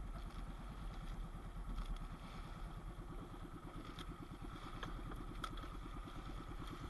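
Small engine of a motorized outrigger fishing boat (bangka) running steadily with an even rapid pulse, with a few light knocks about four to five and a half seconds in.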